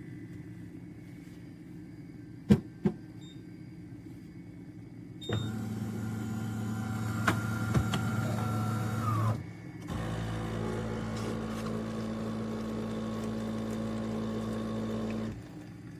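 De'Longhi Rivelia automatic espresso machine working: two clicks, then a motor runs steadily for about four seconds and stops with a falling whine, and after a short pause a second steady motor hum runs for about five seconds.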